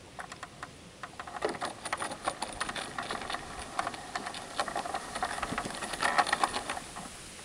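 G-scale Aristocraft ALCO FA1 model locomotive running, its electric motor giving a steady whine while the wheels clatter and click irregularly over the track; the locomotive's front truck is off the rails. It gets going about a second in and stops shortly before the end.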